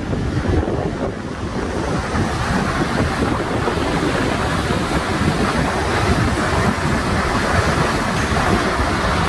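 Steady rushing of a large waterfall plunging down a granite cliff, heard from its brink. Gusts of the updraft wind that the falling water raises buffet the microphone.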